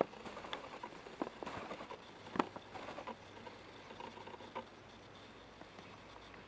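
Camera handling noise: irregular light taps and clicks, the sharpest about two and a half seconds in, dying away after about four and a half seconds as the picture comes into focus.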